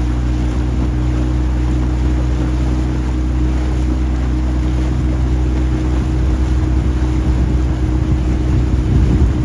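A motorboat's engine running at a steady, even speed, with wind and water noise over it that grows rougher near the end.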